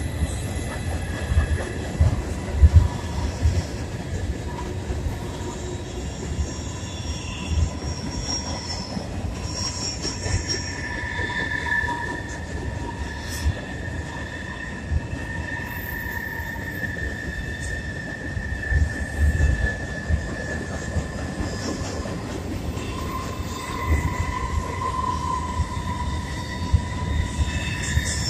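Loaded freight train of covered hoppers and tank cars rolling across a steel trestle bridge: a steady low rumble broken by frequent clunks of wheels over the rail joints, with wheel squeal in long high whines that come and go.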